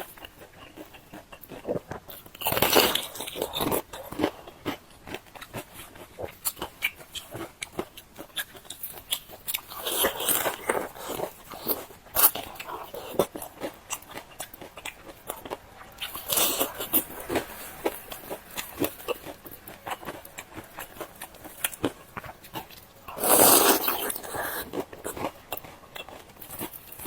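Close-up chewing and crunching of fried dough sticks: steady small wet clicks of chewing, broken by four louder crunchy bites spaced several seconds apart.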